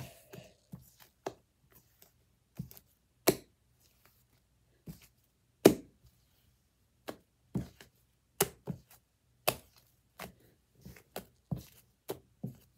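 Sticky homemade slime being squished, poked and pulled by hand on a wooden floor: irregular sharp pops and clicks, one or two a second, the loudest near the middle.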